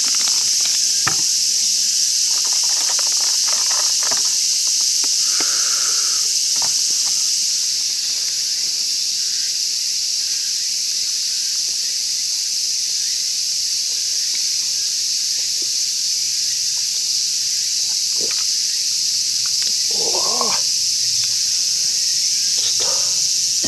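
Steady, high-pitched chorus of insects in the trees, with a few faint knocks and a short pitched sound about twenty seconds in.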